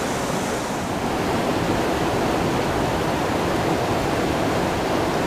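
River rapids rushing: a steady, even wash of whitewater noise.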